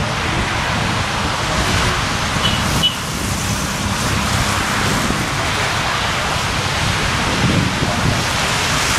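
Wind buffeting the microphone over the steady rumble of a slow-moving narrow-gauge passenger train and passing road traffic.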